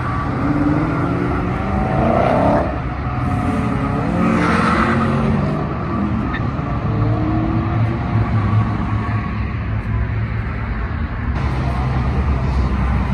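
Car engines and exhausts revving and accelerating away, with engine pitch climbing through pulls in the first few seconds. Then a steady low engine note as vehicles roll past.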